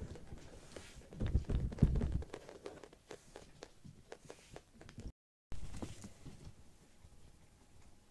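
Kitten's small padding footsteps and light claw taps on a floor mat, with a few louder dull thumps about a second in.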